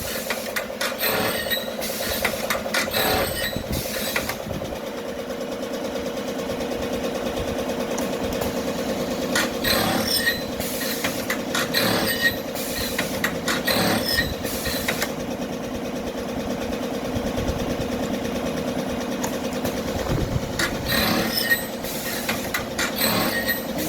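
Machine tool running with an automatic blank feeder: a steady motor hum with a fast mechanical chatter, broken by sharp working strokes about every two seconds in runs.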